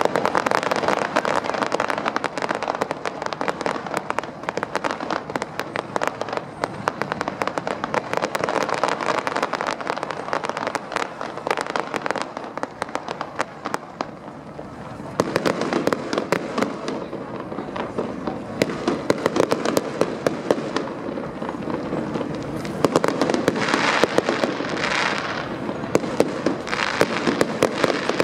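Fireworks display: aerial shells bursting in a dense, continuous run of crackling and popping with louder bangs scattered through, getting heavier about halfway through.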